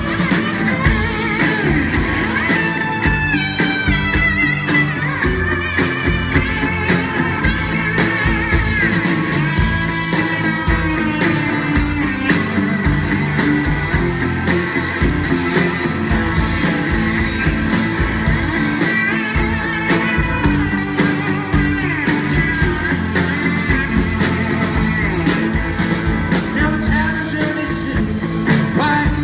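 Live rock band playing an instrumental passage: an electric guitar plays the lead in bending melodic lines over strummed acoustic guitar, bass and drums with a steady beat, recorded from the audience in a large hall.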